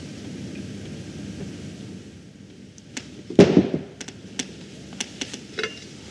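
A few sharp knocks and clicks over a steady background hiss, the loudest a single thump about three and a half seconds in.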